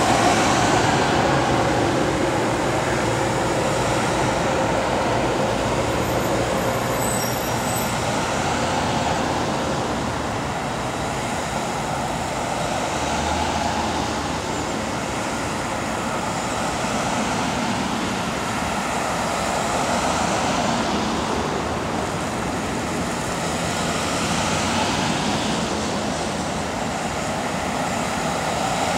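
Police patrol cars driving past one after another at a slow, steady pace: a steady tyre and engine noise that swells and fades as each car goes by.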